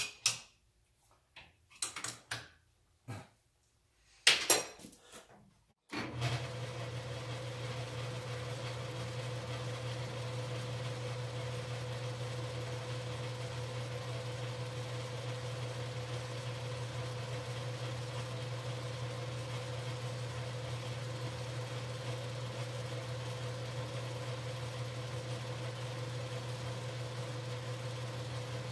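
A few sharp metal clinks and knocks, then about six seconds in a Logan metal lathe is switched on and runs with a steady low hum.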